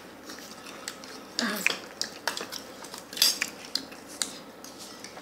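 Eating utensils clinking and scraping against dishes and plastic food containers, as a few irregular, separate clinks; the sharpest comes about three seconds in.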